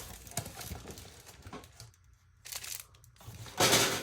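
Packaging being crinkled and rustled by hand, in scattered bursts, with a short pause partway through and a louder crinkle near the end.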